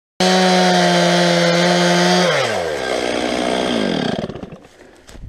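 Stihl 391 two-stroke chainsaw at full throttle, cutting into the trunk of a big oak at a steady high pitch. About two seconds in the throttle is released and the revs fall away over about two seconds until the engine sound dies down.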